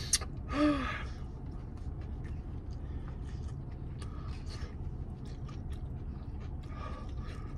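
A person chewing sushi with the mouth closed: soft, wet mouth clicks and smacks over a steady low hum. Near the start there is a breathy exhale and a short hummed "mm".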